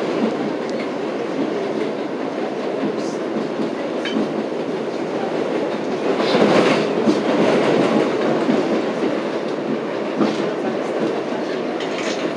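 R62A subway car running across a steel bridge, heard from inside the car: a steady rumble of wheels on rail with a few sharper clacks, the loudest about six and a half seconds in.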